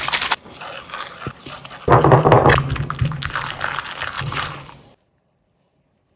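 Wet, crackling slime being pressed and crushed, with a louder burst about two seconds in; the sound fades and cuts off into silence near the end.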